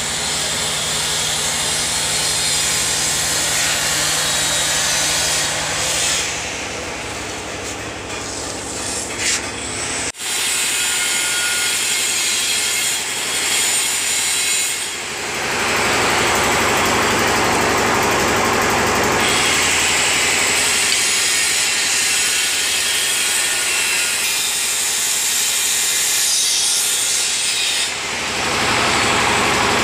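Steady abrasive noise of a ceramic wall tile being shaped to fit. The noise breaks off briefly about ten seconds in and is louder from about fifteen seconds.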